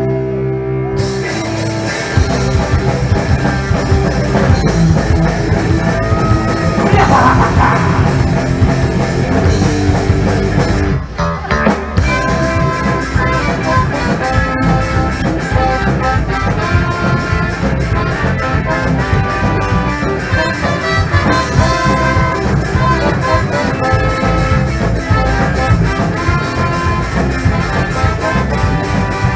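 Punk band playing live: electric guitars, bass and drum kit, coming in at full volume about two seconds in, with a brief break a little past ten seconds before the band crashes back in.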